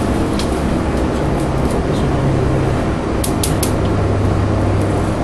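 Three quick sharp clicks a little over three seconds in, from a gas grill's control knob and push-button igniter being worked, over a steady loud rumbling noise.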